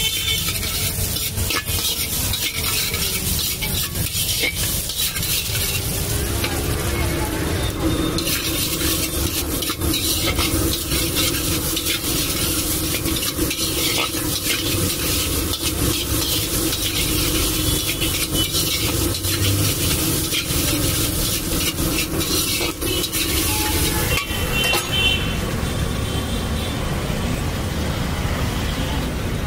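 Flat steel spatula scraping and clattering against a black iron kadhai as sabudana khichdi is stir-fried, in quick repeated strokes over a steady sizzle of the pearls in hot oil.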